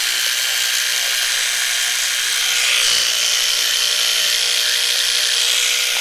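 Electric toothbrush running steadily, a high buzzing hiss that swells slightly about three seconds in.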